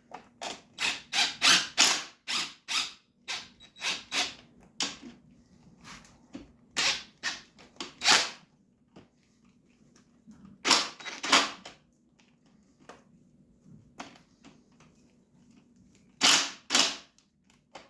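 Ratchet wrench clicking in quick strokes, in several bursts with pauses between, as a fuel-tank mounting bolt is run in.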